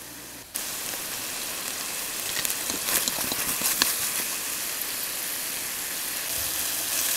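Chicken pieces sizzling in a hot stainless steel pan with no added oil, the last of their moisture cooking off as they brown. The steady sizzle starts abruptly about half a second in, with scattered sharp crackles and spatula scrapes as the pieces are stirred.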